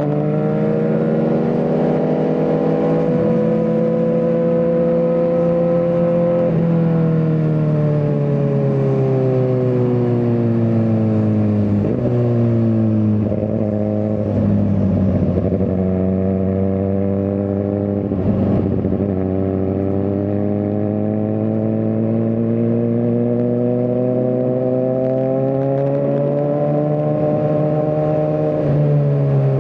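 Suzuki GSX-R1000R inline-four engine running under way, its pitch climbing and easing off slowly as the revs change, with a few sudden drops in pitch as the gears shift.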